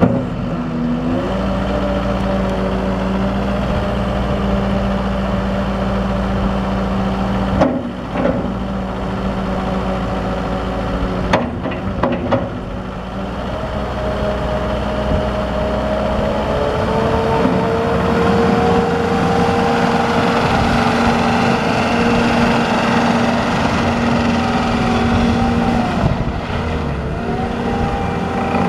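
JCB 190T skid steer's diesel engine running steadily, with a few sharp knocks about a third of the way in; about halfway through the engine speed rises and holds at a higher, louder run.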